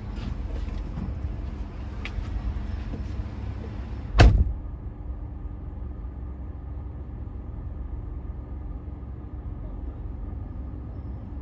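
A car door shuts with one sharp thud about four seconds in, over a steady low rumble and handling noise; after the slam the sound turns dull and muffled, with only the low rumble left.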